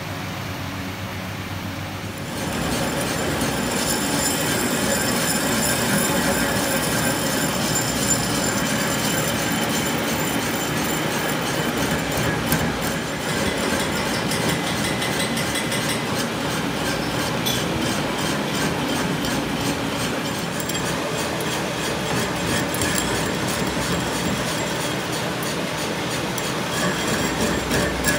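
Metal lathe turning a truck's steel rear axle spindle. About two seconds in, the cutting tool bites in and keeps cutting new threads, a rough steady cutting noise with several high ringing tones over it.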